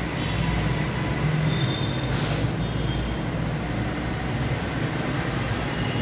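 Steady low rumble of background noise, with a marker writing on a whiteboard: a short scratchy stroke about two seconds in and a few faint squeaks.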